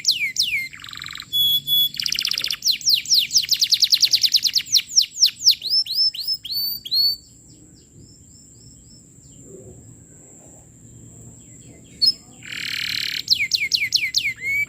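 Canary singing energetically: fast runs of quick falling whistled notes and a rapid trill. It breaks off for about five seconds midway, then starts again.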